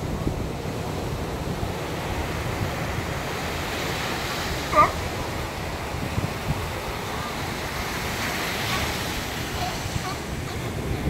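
Surf washing onto a sandy beach, with wind buffeting the microphone. About halfway through, a sea lion gives a single short bark.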